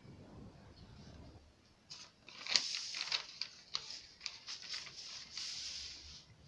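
Scissors cutting through a paper sewing pattern along a curved line: a quick run of crisp snips and paper rustle that starts about two seconds in and stops just before the end.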